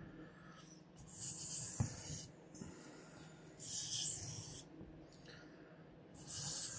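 Knife blade drawn across a 1,000-grit sharpening stone: three scraping strokes about a second each, a couple of seconds apart.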